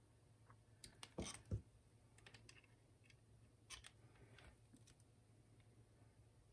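Faint clicks and scrapes of slip-joint pliers gripping and turning a metal PL259 connector body as it is screwed tightly onto the coax, a few small clicks about a second in and again around four seconds in.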